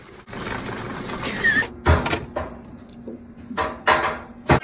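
Rustling, then three sharp knocks and clunks, the last the loudest: food containers and drawers being handled and set down in an open refrigerator.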